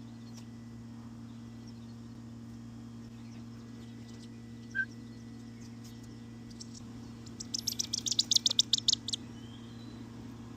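A bird giving a rapid run of about fifteen sharp, high chips lasting under two seconds near the end, after a single short high note about halfway through, over a steady low hum.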